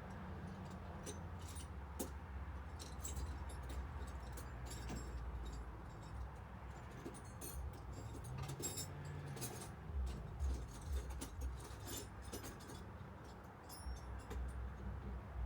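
Small metal parts clinking and jingling as tools and bolts are handled, with scattered sharp ticks and a few low bumps.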